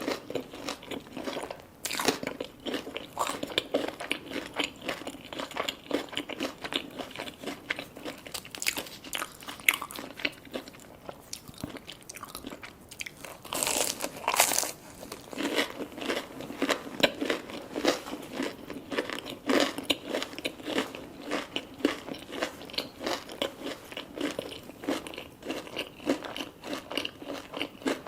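Close-miked eating of crispy fried food: bites crunching through a breaded, fried coating and chewing, a dense run of crisp crackles with a louder spell of crunching about halfway through.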